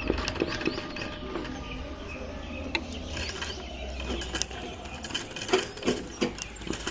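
Sewing machine stitching a running stitch, its mechanism clattering steadily, then stopping about five seconds in, followed by a few sharp clicks.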